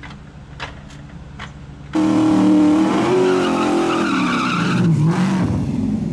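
LS-swapped third-generation Camaro doing a burnout: the V8 revving high with the tires spinning and squealing. It starts suddenly about two seconds in, and the revs drop near the end.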